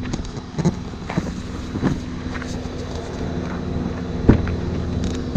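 Nissan sedan's engine idling with a steady low hum, with footsteps on a dirt yard and a few light knocks, the loudest a single sharp knock about four seconds in.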